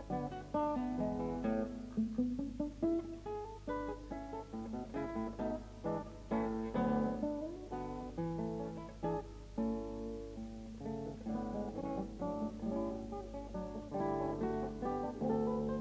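Background music: solo acoustic guitar playing a continuous run of plucked notes and chords. A steady low hum lies underneath.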